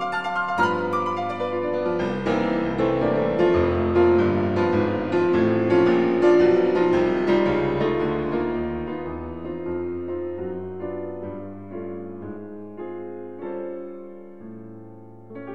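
Piano music laid over as background: a run of notes that grows louder in the middle and then slowly fades, with new notes starting near the end.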